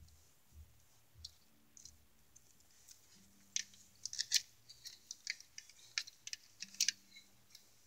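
Faint, irregular small clicks and rustles, mostly in the second half, over a faint low hum.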